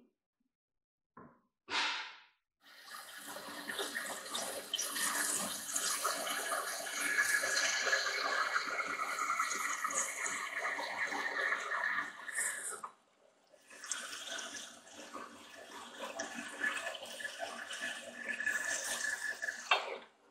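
Johnson horizontal metal-cutting bandsaw cutting through steel stock. A steady cutting noise runs for about ten seconds, breaks off briefly, then a second cut runs for about six seconds. There is a sharp knock about two seconds in and another near the end.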